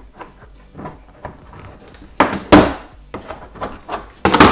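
Plastic trim clips and panel knocking and clattering as the panel is pried loose by hand, with small clicks throughout, two loud knocks about two seconds in and a cluster of loud knocks near the end.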